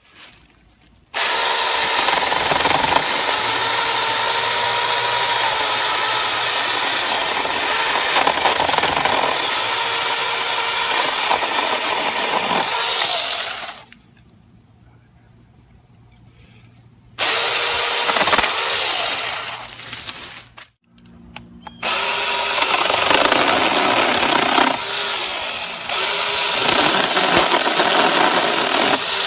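Small battery-powered mini chainsaw with a brushed motor running and cutting wood, a loud buzzing whine in three long runs with short pauses between them.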